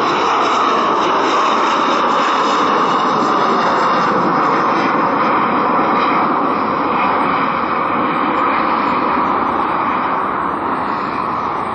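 Embraer E175 regional jet's twin turbofans at takeoff thrust as it climbs out: a loud, steady jet roar. A faint high whine rides on top and fades out by about four seconds in.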